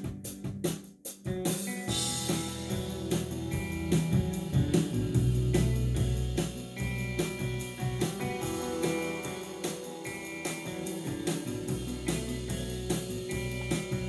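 Music played through JBL Control 1 speakers driven by a Pioneer SA-960 amplifier: a band track in which drums and bass come in about a second and a half in under guitar, then carry on with a steady beat.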